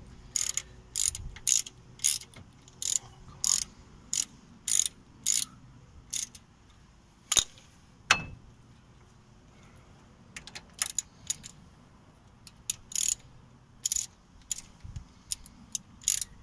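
Ratchet driving a 7mm Allen bit, clicking in short runs about every half second as it screws a slide bolt into a 2014 MG3's sliding front brake caliper. The ratcheting pauses in the middle for a few seconds, broken by two sharp knocks, then starts again.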